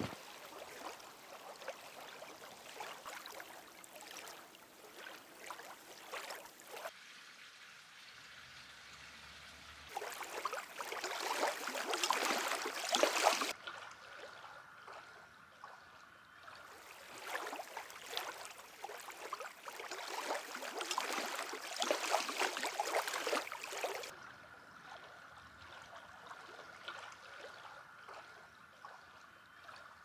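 Mountain stream water running over rocks, heard in several takes of differing loudness that switch suddenly, the loudest in the middle stretches.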